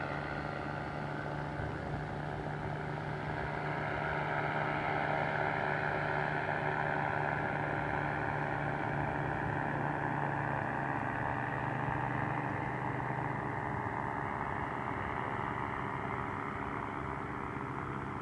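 Paramotor engine and propeller droning as the paramotor flies past. The drone swells towards the middle, drops a little in pitch about two-thirds of the way through, and slowly fades.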